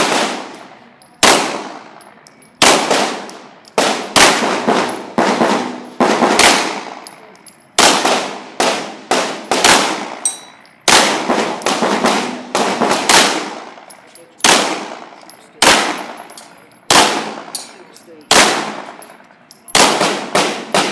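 9mm Glock pistol firing about two dozen shots in a steady string, roughly a second apart with some fired in quick pairs. Each shot rings out with a long echo off the walls and roof of an indoor range.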